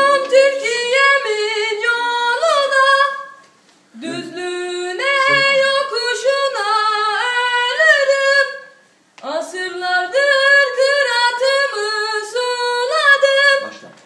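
A boy singing solo and unaccompanied in a high, unbroken voice: three phrases with gliding, ornamented turns in the melody, with a short breath between each.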